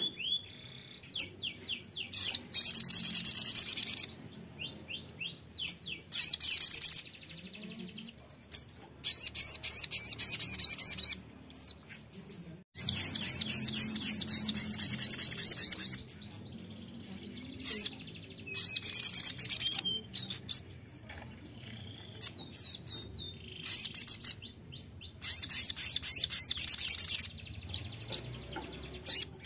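Sunbird ('sogon') singing: repeated bursts of fast, high, chattering trills a second or two long, separated by short gaps with thin falling whistled notes.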